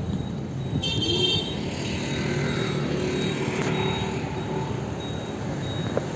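Road traffic: cars and scooters running past on a city road, with a short high-pitched tone about a second in.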